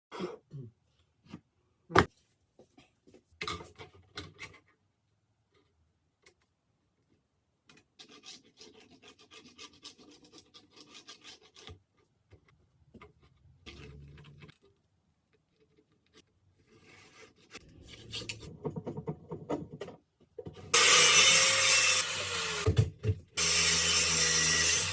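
Woodworking on a wooden frame: a few sharp knocks, then stretches of rasping and rubbing on wood. About three-quarters of the way in, a power tool starts cutting or sanding the wood loudly, its motor pitch dipping briefly under load before it recovers.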